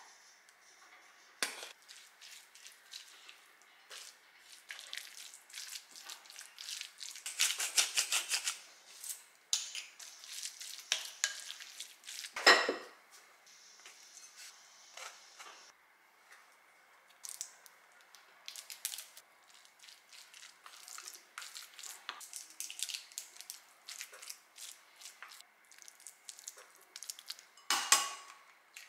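Food preparation with glass bowls: a wooden spoon scraping and clinking in a glass bowl as drained tuna is mixed with mayonnaise, with scattered knocks of utensils and a steel mesh sieve against the bowls. Two sharper knocks stand out, one about halfway through and one near the end.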